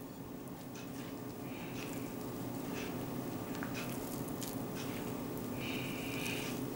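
Hands kneading a soft, sticky cheese dough in a glass bowl while flour is worked in: soft, irregular squishing and patting, over a steady low hum.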